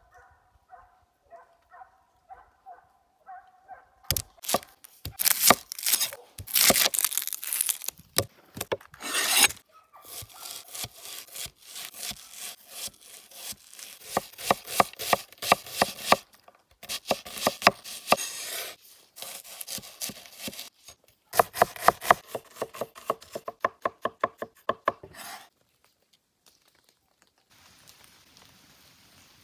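A large knife cutting food on a wooden cutting board: rough slicing strokes, then fast regular taps of the blade on the board as an onion is sliced. The chopping stops suddenly about four seconds before the end, leaving a faint hiss.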